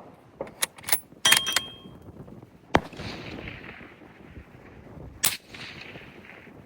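Suppressed 6.5 Creedmoor Howa 1500 bolt-action rifle with an Anthem L-2 QD suppressor. A quick run of metallic clicks and clacks comes in the first second and a half, then a sharp muffled report about three seconds in and another about five seconds in, each trailing off in a short echo.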